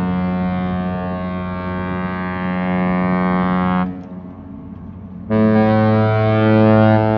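Cruise ship Renaissance's horn giving long, deep blasts as a farewell signal on leaving port. One blast cuts off suddenly about four seconds in, and about a second and a half later a second, slightly higher-pitched blast starts and holds.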